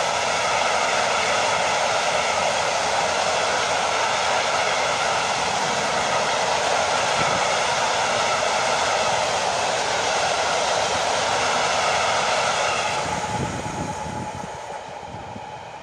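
Freight train of Fals hopper wagons rolling past at speed: a steady clatter and hiss of steel wheels on rail. The last wagon goes by about 13 seconds in and the sound fades away.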